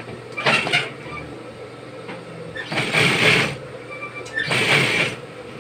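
Juki industrial sewing machine stitching in three short runs, the second the longest, with a steady motor hum between them.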